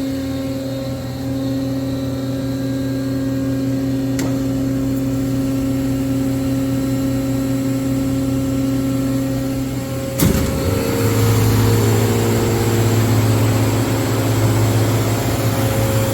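Hydraulic pump unit of an Amada Vipros 255 CNC turret punch running with a steady hum, just after start-up. About ten seconds in there is a sharp clunk, and the hum then grows louder and lower.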